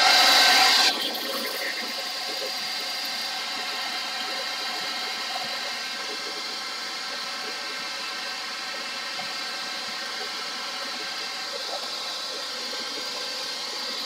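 Handheld hairdryer running, a steady rush of air with a faint motor hum, louder for about the first second.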